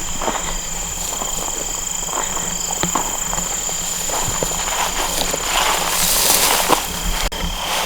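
Footsteps and rustling outdoors, irregular short steps and scuffs, with a steady high-pitched insect drone behind them. There is a louder rustle about six seconds in.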